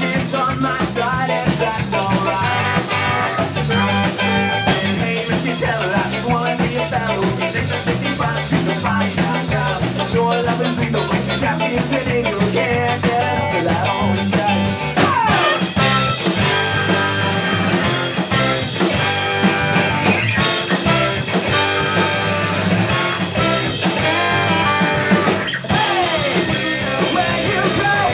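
Ska-punk band playing live: drum kit, electric guitar and bass driving a steady beat, with singing.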